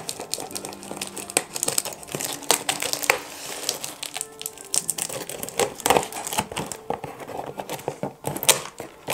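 Packing tape being pulled and torn off a cardboard parcel box, with irregular crackling and crinkling of the tape and cardboard, over background music.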